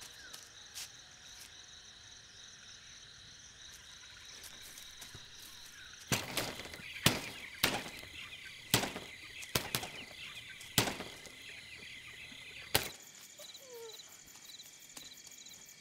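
Night insects, crickets, chirring steadily, with a run of about nine sharp, loud knocks or chops at uneven spacing in the second half. The knocks stop abruptly, and the chirring then turns to a pulsing rhythm.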